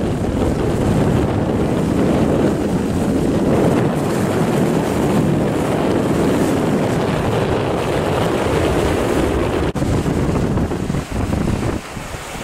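Wind buffeting the microphone over rough, choppy water, with the wash of small motorboats running through the waves. There is a short break in the sound just under ten seconds in.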